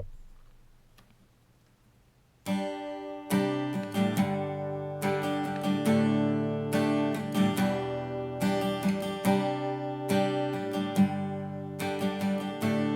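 Acoustic guitar strummed in chords, recorded through an AKG Lyra USB condenser microphone set to its tight stereo mode. It comes in suddenly about two and a half seconds in, after a near-silent start, and strums on steadily.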